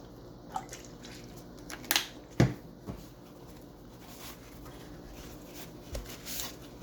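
Scattered clicks and knocks of small pistol parts and tools being picked up and set down on a work surface, with a louder knock about two and a half seconds in and some light rubbing near the end.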